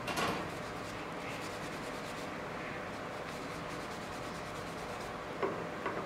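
Gloved hand rubbing a wipe along a freshly glued oak joint to clear glue squeeze-out, over a steady background hiss. Two short sharp sounds near the end.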